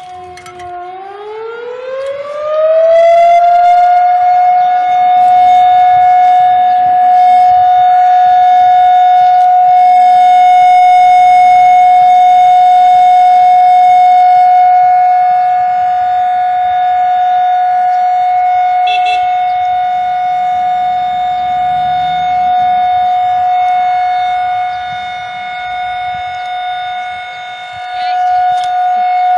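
Rotary motor siren winding up from a low pitch to a high steady tone over the first few seconds, then holding that tone, a little quieter in the second half.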